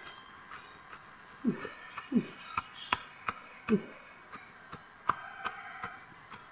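A wooden stick pounding chillies in a coconut-shell bowl, heard as irregular dull thuds and sharp clicks.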